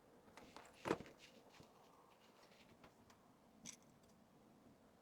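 Near silence broken by a few soft knocks and taps from small items being handled: one clear knock about a second in, a fainter tap near the end.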